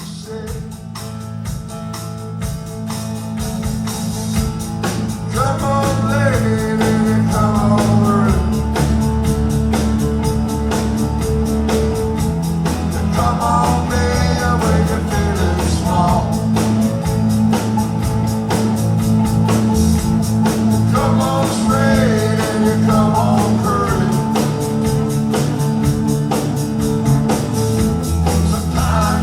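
Live band playing an instrumental stretch of a country-folk song: a lead melody line bending up and down in phrases over strummed guitar chords, bass and drums. The music builds in loudness over the first several seconds as the drums come in.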